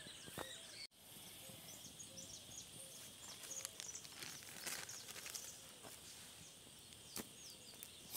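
Faint outdoor ambience: scattered short bird chirps over a steady high-pitched hum, with a few light clicks. The sound cuts out for an instant just under a second in.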